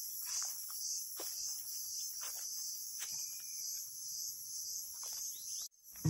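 A steady, high-pitched chorus of forest insects, pulsing in level, with a few faint scattered crackles beneath it. It cuts off abruptly just before the end.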